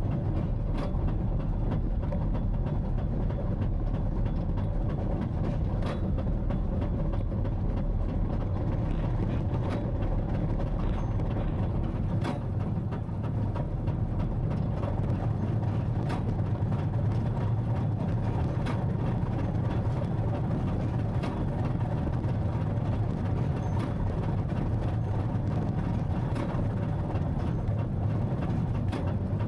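Tractor engine running steadily, with scattered sharp clicks and rattles from the machinery.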